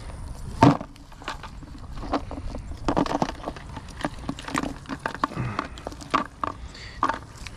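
A cast net being handled and thrown: a loud knock about a second in, then a run of light clicks and rattles as the net and its weights are gathered and swung out.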